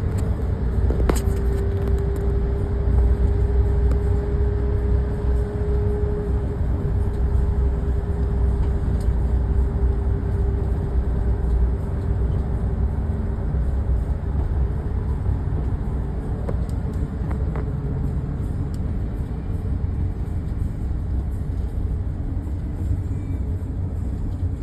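Road and engine noise heard inside a moving car: a steady low rumble, with a steady hum that fades out about halfway through and a single click about a second in.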